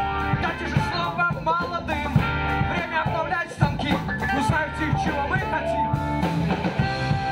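Live rock band playing a song with electric guitar and a steady beat, in a passage without lyrics, heard over the stage PA.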